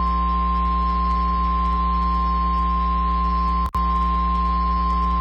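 NOAA Weather Radio's 1050 Hz warning alarm tone: one steady pure tone over a loud electrical hum, cutting out briefly once, about three and a half seconds in. The tone signals that a warning message, here a tornado warning, is about to be read.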